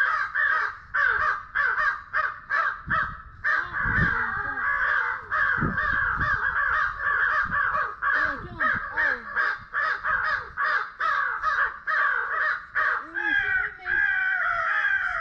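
Crows cawing in a dense, continuous chorus of short caws, about four a second, with a brief break about three seconds in. Two dull low bumps sound around four and six seconds in.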